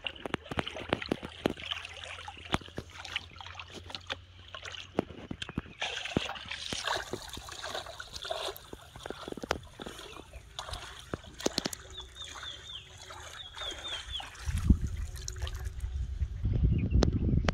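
Shallow river water splashing and sloshing around a person wading through it, with many small knocks and clicks. A short run of high chirps comes about twelve seconds in, and a low rumble fills the last few seconds.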